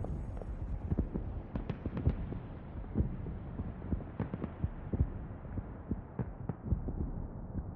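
Muffled, irregular low thumps over a dull rumble, with the top end slowly getting duller.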